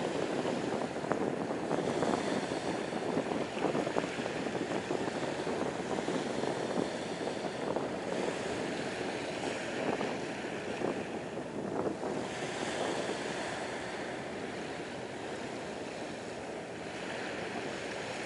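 Wind on the microphone with small waves washing at the shoreline: a steady, uneven rushing noise that eases slightly in the second half.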